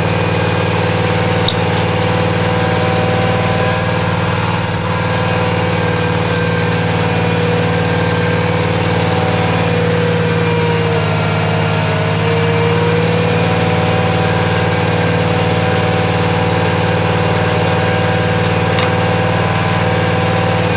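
Well drilling rig's engine running steadily. Near the middle one of its tones sags briefly in pitch and then comes back up.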